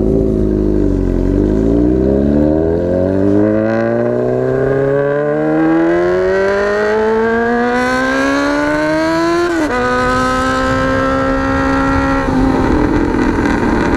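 Honda Hornet CB600F inline-four with a megaphone exhaust, pulling away under acceleration. The engine pitch climbs steadily for about eight seconds, drops sharply at an upshift, then holds nearly steady.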